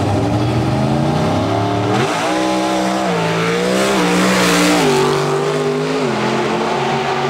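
Classic drag car's engine idling at the starting line, then launching about two seconds in and accelerating hard down the strip. The revs climb and drop back several times as it shifts through the gears.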